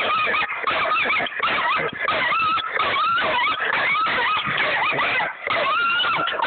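Dog whining and yelping in high, wavering cries with barely a pause.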